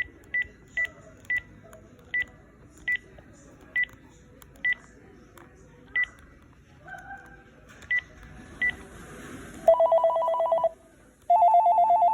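Panasonic KX-TGF574S cordless phone handset giving about eleven short key beeps at uneven intervals, as its menu is stepped through. Near the end a ringtone starts: a rapidly warbling two-tone trill in two bursts, louder than the beeps.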